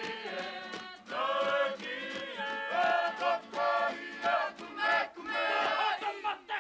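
A group of Maori men chanting a war song in unison, in strong rhythmic phrases.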